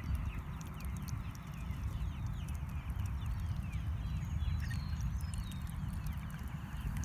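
Low, uneven rumble of wind on the microphone, with many short falling bird chirps in the background.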